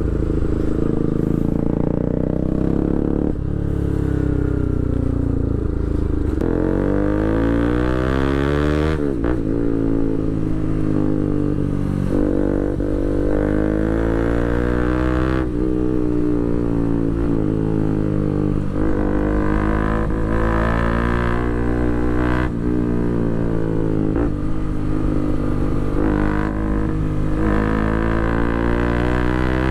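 Bajaj Pulsar RS200's single-cylinder engine through an Akrapovic full titanium exhaust with the dB killer removed, loud and harsh under way. The pitch climbs through each gear and drops at each shift, several times over.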